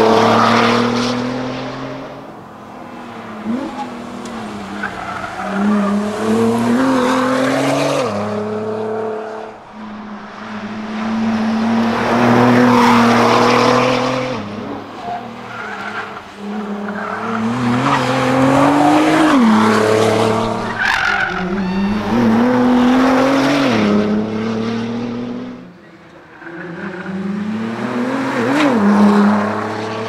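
Nissan R35 GT-R's twin-turbo V6 driven hard past the listener several times, revving up through the gears and dropping in pitch as it lifts off for corners.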